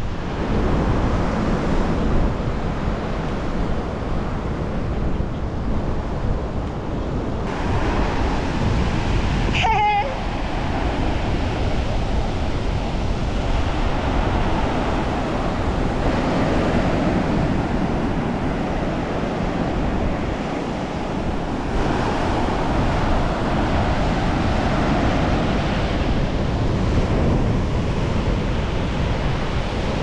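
Small waves breaking and washing up on a sandy beach, a steady surf noise with wind rumbling on the microphone. About a third of the way in there is one brief high cry that slides down in pitch.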